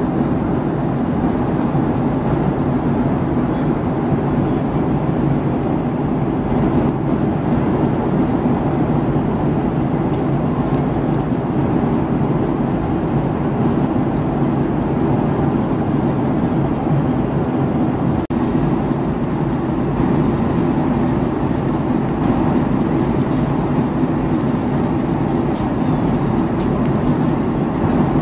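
Steady cabin noise of a Boeing 757-200 airliner in cruise, heard from a window seat: a constant low roar of engines and airflow, broken once by a momentary dropout about two-thirds of the way through.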